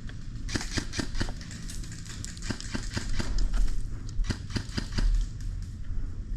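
Airsoft gunfire: irregular sharp snaps and clicks scattered throughout, over a steady low rumble of wind on the microphone.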